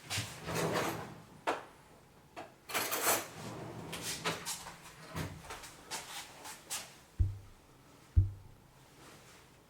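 Handling noises: a series of rustles and sharp clicks, then two dull knocks near the end, the second the loudest.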